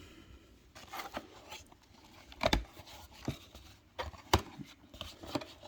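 Hands handling a cardboard trading-card box and the oversized card from its top: a few scattered light knocks and rustles, the loudest about two and a half seconds in.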